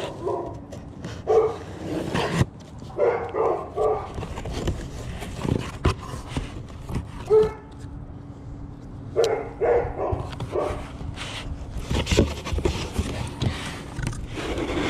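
A dog barking repeatedly in short runs of three or four barks, over the scrape and rustle of a cardboard box being cut open and unpacked. A steady low hum runs underneath and stops near the end.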